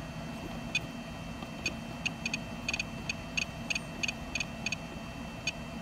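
ISDT SC-608 battery charger giving a string of short, high beeps at irregular intervals, one for each click of its scroll wheel as the charge current is stepped down.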